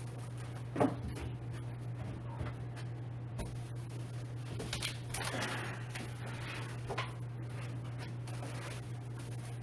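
Handling noises as chair parts are unpacked from their box: a sharp knock about a second in, then rustling and scraping of packaging around the middle, with a few light clicks, over a steady low hum.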